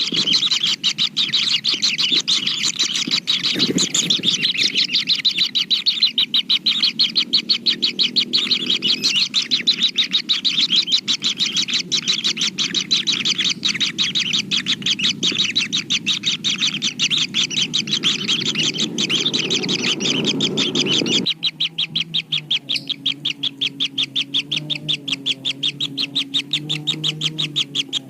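Kingfisher nestlings chirping in rapid, unbroken repetition, many calls a second. About three quarters of the way through, the sound cuts abruptly to a quieter level.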